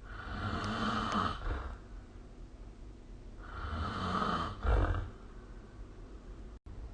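A sleeping person snoring: two snores about three and a half seconds apart, the second ending louder and lower.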